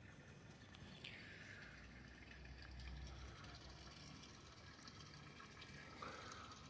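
Near silence: faint water lapping, with two short high sounds falling in pitch, one about a second in and one near the end.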